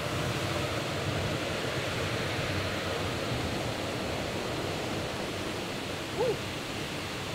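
Steady rushing noise of large shop cooling fans moving air, even in level and with no pitch to it.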